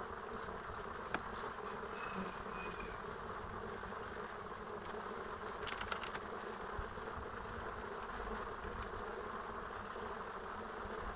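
Steady hum of many honeybees flying and crowding at a hive entrance fitted with a pollen trap. A couple of faint clicks sound about a second in and near the middle.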